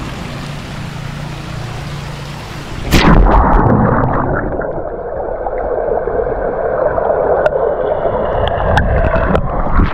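A splash about three seconds in as the microphone plunges into a swimming pool, then muffled underwater gurgling and bubbling with scattered clicks, until it comes back out of the water near the end.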